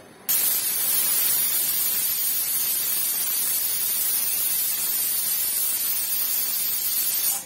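An aluminium pressure cooker's weight valve whistling: a loud, steady hiss of venting steam that starts sharply and cuts off suddenly near the end. It is the single whistle that signals the cooker has come up to full pressure, the cue to switch off the flame for the biryani rice.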